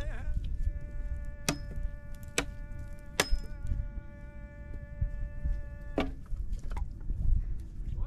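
Background music: a long held, buzzy synthesizer-like note that bends up as it starts and stops about six seconds in, with a few sharp percussive clicks. A second bent note begins near the end, over a low wind rumble.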